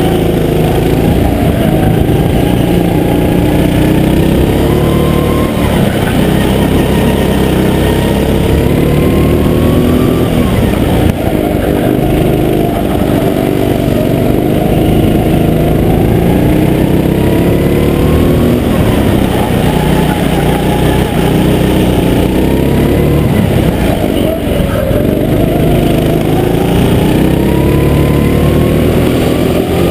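Go-kart engine running hard, heard close up from the kart, its pitch climbing in long runs of several seconds and dropping back sharply four or five times as the kart accelerates and slows through a lap.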